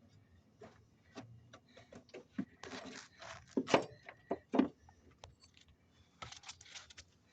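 Handling noise: scattered light clicks and knocks with a few short scrapes, loudest in the middle.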